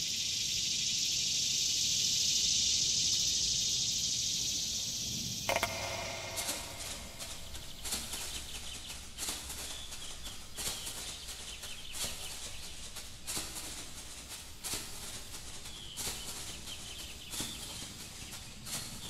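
Outdoor nature ambience: a steady high hiss swells and then cuts off about five and a half seconds in, followed by scattered clicks and short high calls.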